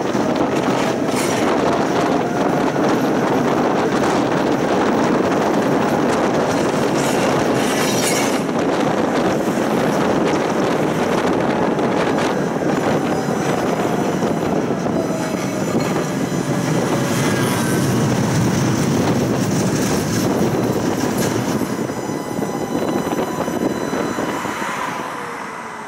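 Tram running on its rails, heard from on board: a steady rumble of wheels and running gear, with a few knocks over the track and faint wheel squeals now and then. It grows quieter near the end.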